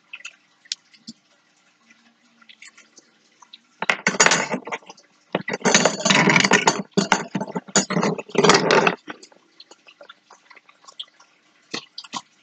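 Light clicks and clinks of small metal pliers and cuticle cutters working a wire earring hook. In the middle, several seconds of loud, broken bursts of noise.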